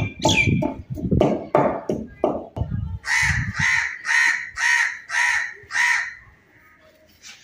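A crow cawing six times in a steady series, about two caws a second.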